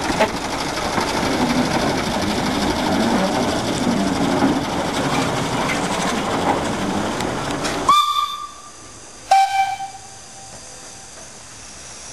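Small narrow-gauge diesel locomotive engine running with a dense clatter; it cuts off suddenly after about 8 seconds. Then two short steam locomotive whistle toots, about a second apart: the first brief and higher, the second lower and a little longer.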